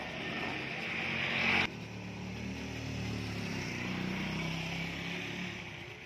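A hiss builds for about a second and a half and cuts off suddenly. Then a motor vehicle engine runs, growing louder and fading again.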